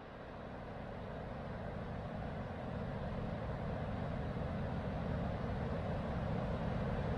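Steady roar of ocean surf breaking on a sandy beach, fading in and growing louder over the first few seconds.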